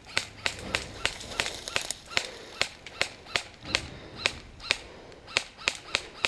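Guns firing a long string of single shots in quick succession, about three sharp cracks a second, spacing out slightly toward the end.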